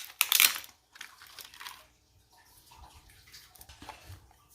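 Plastic toy packaging crinkling as it is handled and pulled open, with two louder crackles in the first two seconds and faint rustling after.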